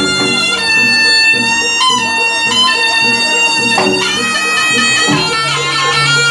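Jaranan gamelan music led by a slompret, the Javanese reed shawm, playing a loud, nasal melody of long held notes that change pitch every second or so, over a fast repeating percussion pattern.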